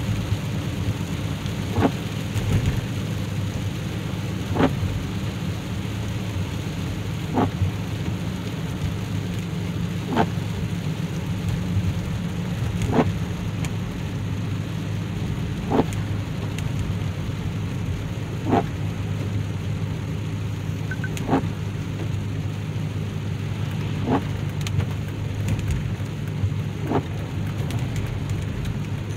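Inside the cabin of a supercharged Chevrolet Impala SS (3.8-litre L67 V6) driving in rain: a steady low engine and road drone with rain hissing on the car. A wiper sweep thumps across the windshield about every three seconds.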